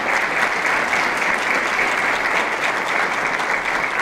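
An audience applauding, a steady dense clapping.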